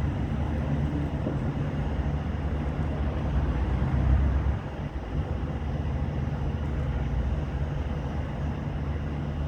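Steady low rumble of road traffic, with a vehicle passing about four seconds in.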